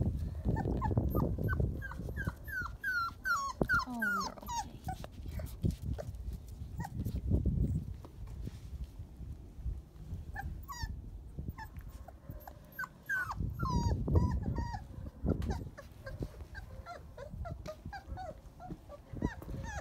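Three-week-old Labrador Retriever puppies whining in quick runs of short, high-pitched, falling cries while they mouth and tug at a plush toy, with bouts of low rumbling noise.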